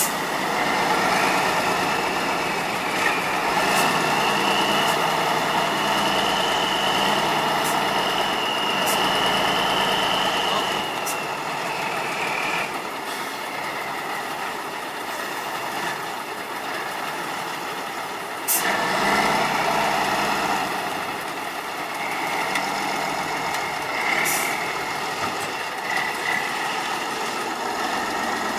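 Tatra 815 8x8 trial truck's engine working slowly under load through soft sand. A high whine sits above the engine note for much of the time, and there is a sharp knock about two-thirds of the way through.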